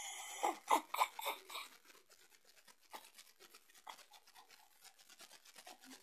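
Scratchy rubbing and tapping close to the microphone: handling noise from fingers on the recording device. A quick burst of louder scratchy strokes in the first second and a half gives way to faint, rapid ticking.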